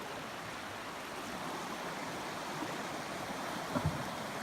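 Steady rush of flowing creek water, with a faint short knock about four seconds in.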